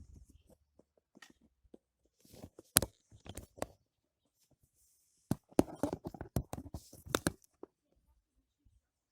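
Close handling noise from working the trampoline mat and sewing awl: sharp clicks, scrapes and rustling of the webbing, in two bursts, one about two seconds in and a longer one from about five seconds in.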